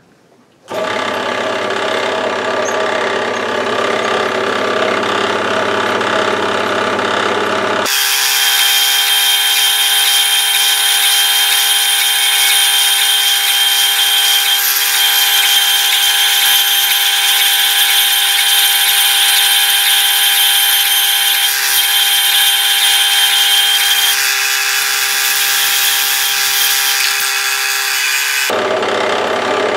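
A power tool running steadily with a high whine, starting just under a second in. About eight seconds in the low hum drops away and a sharper, steady high squeal takes over, and it stops shortly before the end.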